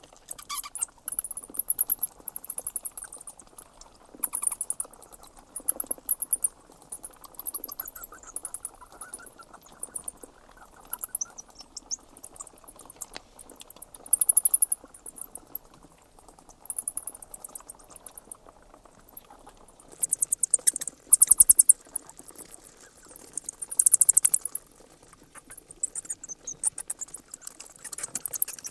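Bats squeaking: bursts of rapid, very high-pitched chittering that come every second or two, over faint steady background noise.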